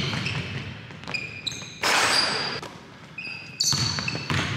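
A basketball being dribbled on a gym's hardwood court, with short high sneaker squeaks as players cut. A louder burst of noise comes about two seconds in and another near the end.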